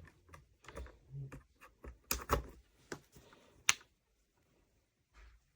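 Handling clicks and taps of plastic plugs and a travel adapter as a charger is unplugged and plugged into another outlet: about half a dozen sharp clicks, the loudest about three and a half seconds in, then quiet.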